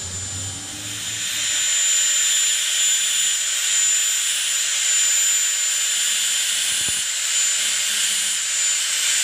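A steady loud hiss with a thin, high, steady whine over it. It builds up over the first two seconds and then holds. A single low knock comes about seven seconds in.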